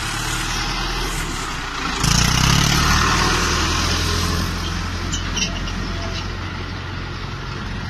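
Tractor engine running steadily, growing louder about two seconds in and then slowly easing off.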